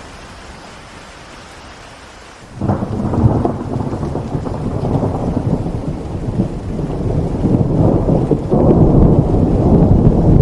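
Steady rain hiss, broken about two and a half seconds in by a sudden loud, low rumble of thunder that rolls on and swells again near the end.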